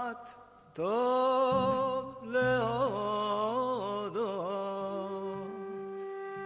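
A piyut, a sacred Hebrew song from the Saharan Maghreb, sung by a solo voice in ornamented, wavering lines with long held notes. A low held accompanying tone sits under the voice in the middle. The singing breaks off briefly just after the start.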